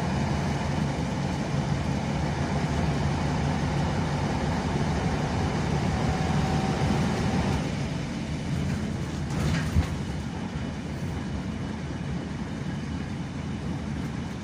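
Inside a Neman 5201 city bus on the move: steady engine and road noise. A short knock comes about ten seconds in.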